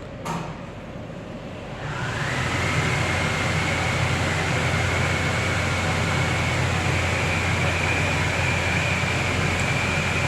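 A ducted AC indoor unit's blower starts up a couple of seconds after a click from the thermostat. Its whine rises and then holds steady over a strong, steady low hum. The hum is vibration passed into the false ceiling, whose supports are hung from the machine itself. The blower itself is not blocked or unbalanced.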